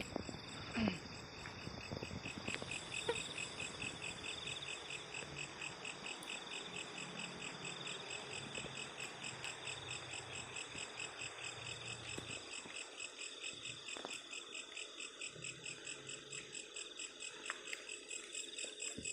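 Crickets chirping in a steady, evenly pulsed chorus, with a brief louder sound about a second in.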